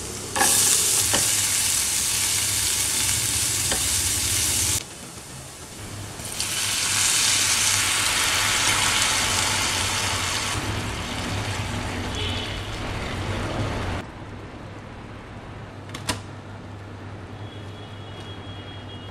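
Minced garlic sizzling in a hot frying pan, then, after a short drop, a second loud sizzle as cream bubbles in the pan, slowly dying down to a quieter simmer. One sharp click about 16 seconds in.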